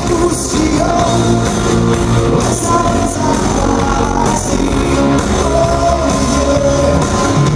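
Live rock band playing: electric guitars, bass guitar and drums, with a voice singing long held notes over them.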